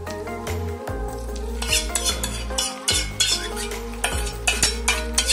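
A spoon scraping hot tempering out of a stainless steel kadai into palak paneer gravy: a quick run of metal scrapes and clinks from a little under two seconds in, with some sizzling as the hot oil meets the gravy.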